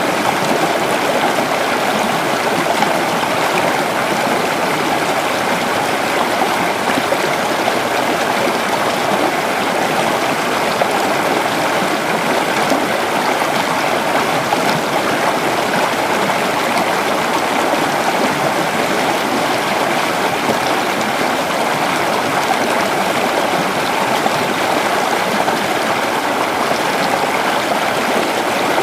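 A creek's water running steadily over stones, a continuous rushing and babbling.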